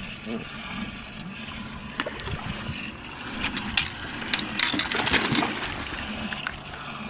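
Water splashing and lapping beside a boat, with a quick run of sharper splashes about four to five and a half seconds in, from a hooked largemouth bass thrashing at the surface close to the boat.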